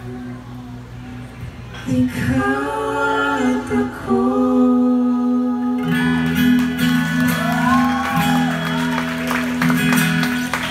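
Live acoustic guitar and voices singing wordless closing lines over a held low note, as a ballad duet ends.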